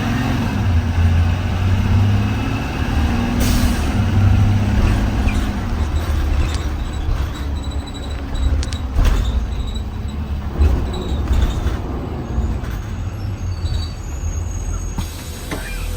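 2020 Blue Bird Vision school bus riding along, heard from inside: engine running with road noise. A short hiss of air comes about three and a half seconds in, typical of the air brakes.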